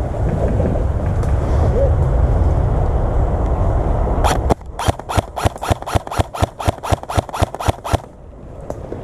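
A loud low rumble, like wind or handling noise on the microphone. About halfway through, an airsoft gun fires a rapid string of about seventeen sharp shots, roughly five a second, which stops suddenly.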